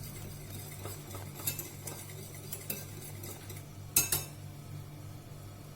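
A spoon stirring thick cheese sauce in a pot, with scattered light scrapes and knocks against the pot and one sharper clack about four seconds in, over a steady low hum.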